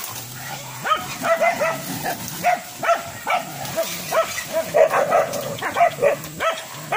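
Boar-hunting dogs barking in short, sharp barks, about two a second, in a steady run.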